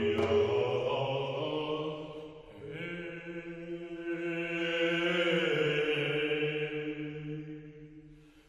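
Background music of slow, long-held chant-like tones, the chord changing twice, fading out near the end.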